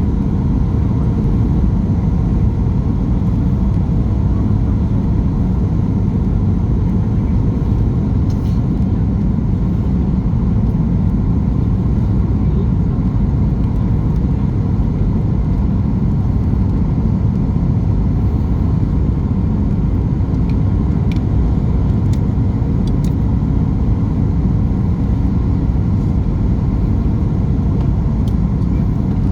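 Steady low rumble of a Boeing 737 MAX 8 in flight, heard inside the passenger cabin: the CFM LEAP-1B engines and the rush of air past the fuselage blending into one constant drone.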